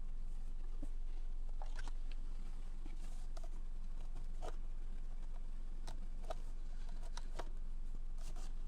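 Light, scattered clicks and taps of hands working on a steering wheel, over a steady low electrical hum.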